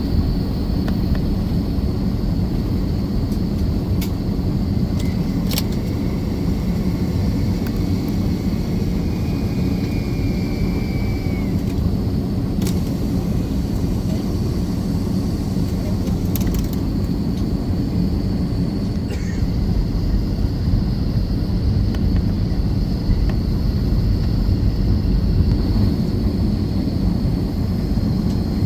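Steady low rumble of an airliner's cabin while it taxis, the jet engines running at low taxi power, with a faint steady high whine above it. A few light clicks come through.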